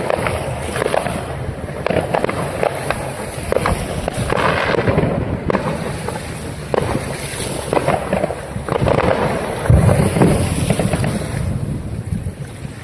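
Fireworks going off: a dense, irregular run of bangs and pops, with a heavier low boom about ten seconds in.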